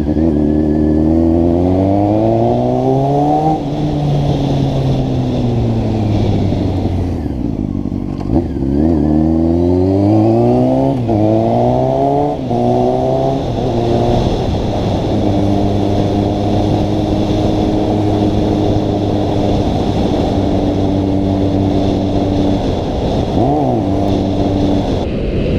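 Motor vehicle engine with a new exhaust revving: its pitch climbs and drops back several times, then it holds a steady pitch for the second half.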